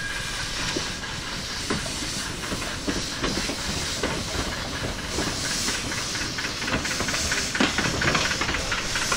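Narrow-gauge steam locomotive 99 3461 moving off slowly: steam hissing from its open cylinder drain cocks, with light rhythmic clanks from the running gear that come faster from about halfway through.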